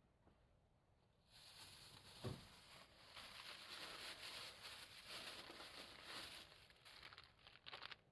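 Dry crinkling and rustling that starts about a second in and carries on irregularly, with one soft thump shortly after it begins.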